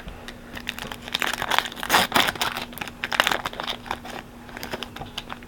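Foil wrapper of a trading card pack crinkling and tearing as it is opened by hand, with crackly rustles and clicks that are busiest in the middle. A faint steady hum runs underneath.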